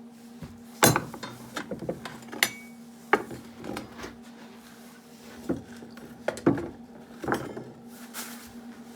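Hand tools and steel pieces being handled on a workbench: a series of separate metal clanks and scrapes, one of which rings briefly, over a steady low hum.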